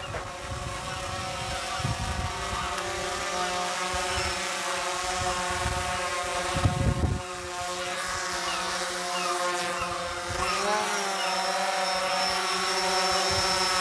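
Small quadcopter drone's propellers buzzing steadily as it flies in and descends with a package slung beneath, the buzz growing louder as it comes closer. The pitch bends briefly about eleven seconds in.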